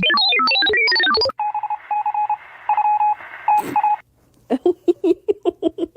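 Electronic telephone tones. A fast run of beeping notes at changing pitches is followed by a beep at one pitch that repeats on and off for a few seconds. Near the end comes a quick train of short pulses.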